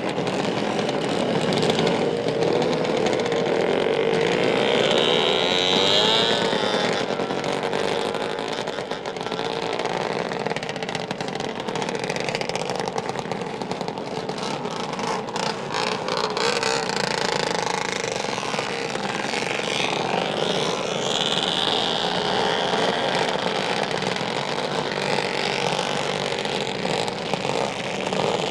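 Off-road ATV engine running and revving, its pitch rising and falling as it rides, with a few sharp knocks about halfway through.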